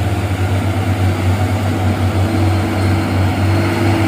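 Truck engine running steadily on the move, a loud, even low drone with road noise; a faint steady higher tone joins about halfway through.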